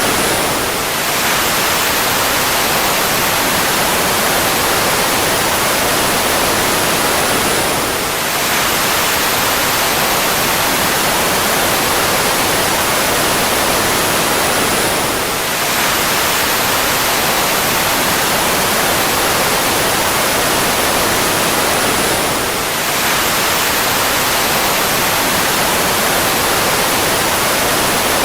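Fighter jet engine noise: a loud, steady rushing hiss with a faint high whine that falls slowly in pitch. It dips briefly about every seven and a half seconds, a short recording repeating on loop.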